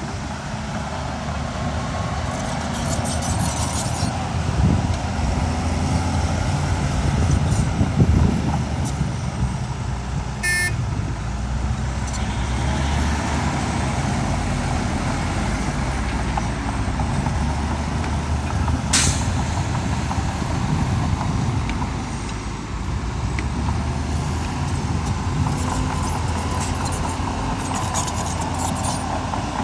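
Heavy diesel engine of earthmoving machinery running steadily under load, with a brief rattle of clicks about a third of the way in and a sharp clank about two-thirds of the way through.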